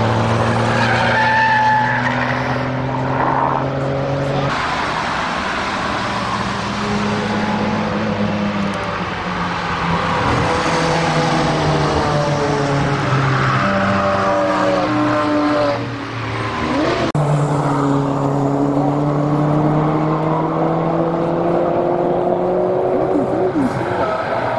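Several road vehicles driving past one after another, their engines revving up through the gears, in a series of short clips that change abruptly about four seconds in and again about seventeen seconds in.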